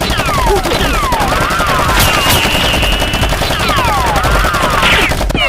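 Rapid, continuous machine-gun fire, likely an added sound effect, with repeated falling whistling tones over it and a short steady high tone about two seconds in.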